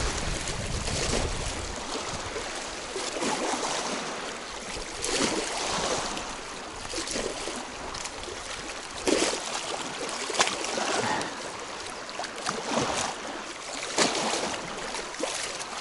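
Small waves lapping and splashing against a stony shore, with a steady rush of wind and water and a few sharp knocks or splashes scattered through it.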